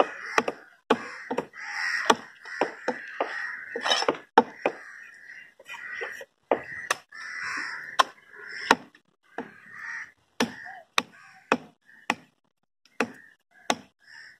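Heavy cleaver chopping red snapper into pieces on a wooden tree-stump block: sharp chops at an uneven pace, about two a second, with crows cawing between them.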